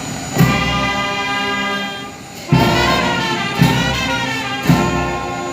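Brass band playing sustained chords of trumpets and trombones, with four heavy drum or cymbal strikes a second or so apart.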